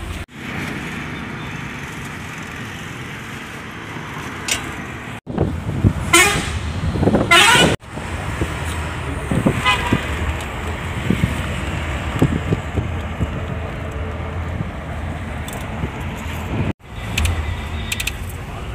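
Steady engine and road noise inside a moving non-AC sleeper bus, broken into several short clips. A loud horn with a rising pitch sounds for about a second and a half, between five and eight seconds in.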